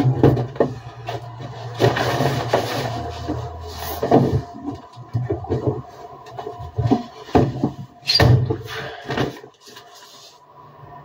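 Irregular clunks, knocks and rustles of a front-loading washing machine door and a fabric laundry basket being handled, over a low steady hum that fades out near the end.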